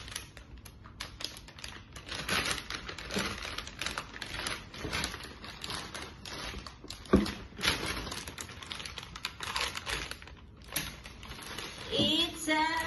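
Thin black plastic mailer bag crinkling and rustling as it is cut open with scissors and handled, with scattered snips and clicks. One sharp knock about seven seconds in.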